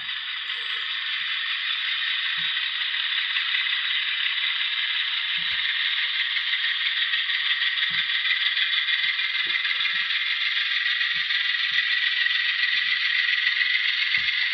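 A model train rolling along the layout's track, the wheels of a string of tank cars making a steady rattling rush on the rails. It grows louder over the first two seconds as the cars get moving, with a few faint knocks underneath.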